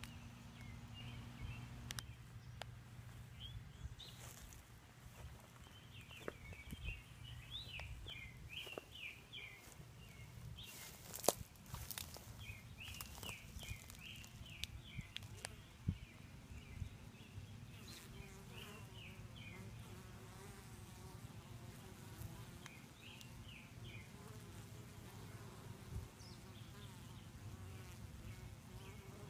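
Honeybees buzzing around their hive, a steady low hum. A sharp click stands out about eleven seconds in.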